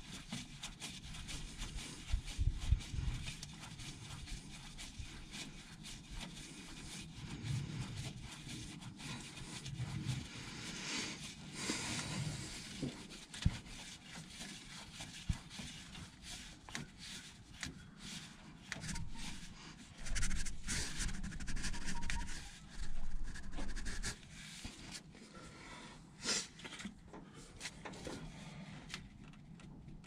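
A man breathing hard while threading a new transmission filter on by hand, with rubbing, light knocks and a few louder low rumbles.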